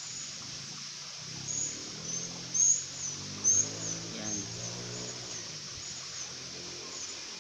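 A small bird chirping over and over in short high notes, about two a second and loudest in the first half, over a steady outdoor hiss. A faint low drawn-out sound runs underneath for a few seconds.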